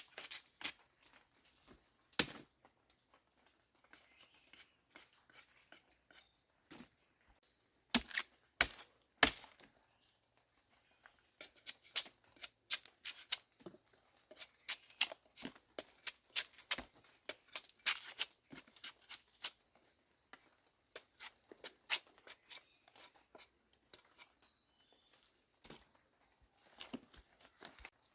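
Irregular sharp clicks and knocks of something being handled, the loudest about 2, 8 and 9 seconds in and a quick run of them in the middle, over a steady high-pitched buzz.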